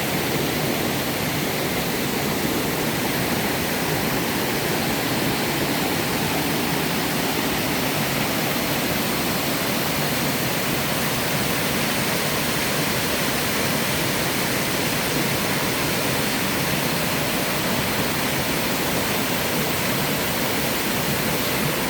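Small mountain-stream waterfall pouring over rock, a steady, even rush of falling water.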